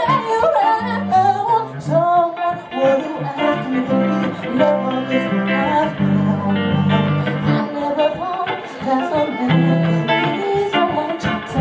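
Live song: a woman singing over guitar accompaniment with a steady low bass line.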